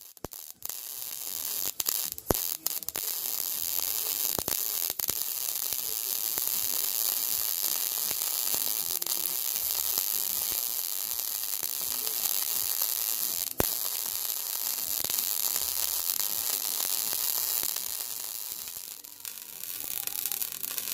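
Electric arc welding: a steady crackling sizzle with occasional sharp pops, dying away near the end.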